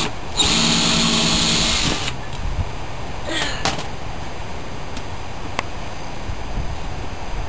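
A 19.2-volt cordless drill running at high speed, drilling a hole: it cuts out for a moment just after the start, runs again and stops about two seconds in. Afterwards only faint handling noise and a couple of light clicks.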